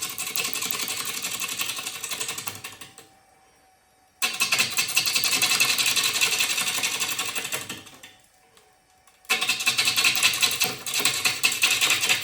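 Lathe tool cutting a wet, chainsaw-cut bowl blank spinning slowly on a midi lathe, about 350 RPM. The cut comes as a rapid ticking rasp in three stretches, broken by two short pauses.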